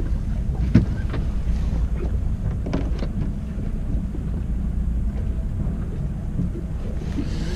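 Fishing boat's engine running with a steady low drone, with a few light clicks.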